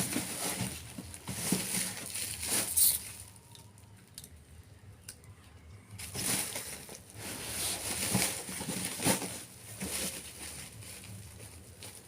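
Parcel packaging being handled and opened: irregular rustling, crinkling and light clicks, with a quieter pause a few seconds in.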